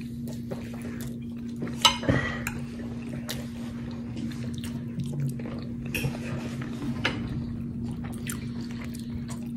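Metal fork clinking and scraping against a glass serving bowl, with a sharper clink and scrape about two seconds in, between bites of chewing. A steady low hum runs underneath.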